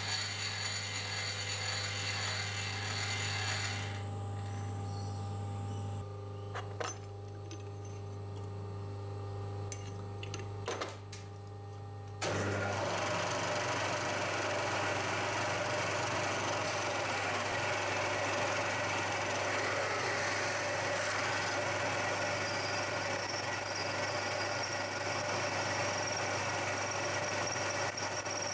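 Milling machine spindle running while drills are fed into a block of aluminium: a steady hum and whine, quieter with a couple of clicks for a while, then from about twelve seconds in a louder, rougher steady cutting noise as a larger drill bores through and throws chips.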